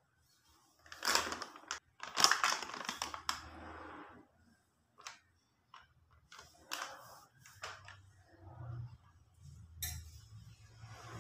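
A plastic flour packet being handled and crinkled, with loud crackling rustles about one to three and a half seconds in, then scattered sharp clicks and lighter rustling.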